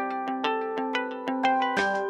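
Background music: a melody of plucked, ringing notes, with a brighter percussive layer coming in near the end.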